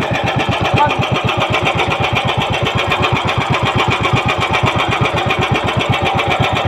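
Small outrigger fishing boat's engine running steadily, with an even, rapid chugging beat.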